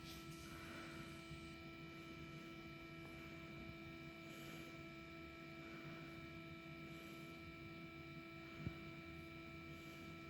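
Quiet room tone with a steady electrical hum made of several held pitches, and a single faint tap about three-quarters of the way through.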